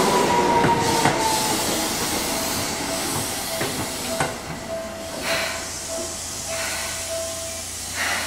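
Seibu 2000-series electric train slowing to a stop at a platform. Its falling motor whine fades out in the first second or so, then a faint steady tone runs on and air hisses several times as the brakes bring it to a halt.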